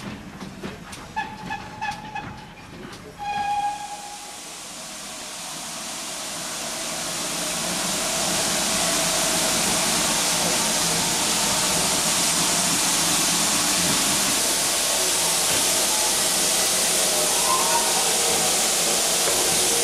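Steam locomotive whistle giving two short toots among light clicking, then a loud steady hiss of a GWR steam locomotive releasing steam, swelling over a few seconds and holding.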